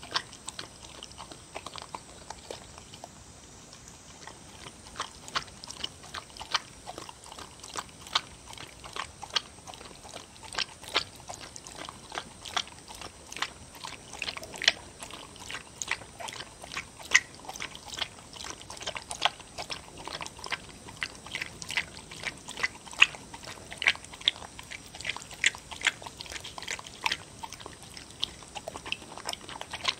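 A dog eating wet seaweed and beef soup from a bowl: irregular wet chewing and smacking clicks, a few a second.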